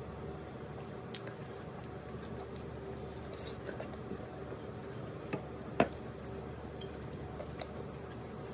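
Close-up mouth sounds of someone eating fried chicken: wet chewing and smacking with soft scattered clicks, and one sharper click a little under six seconds in, over a faint steady hum.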